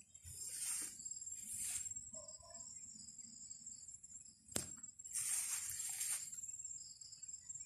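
Insects, crickets by their sound, trilling steadily and high-pitched, with three bursts of rustling and one sharp click about halfway through.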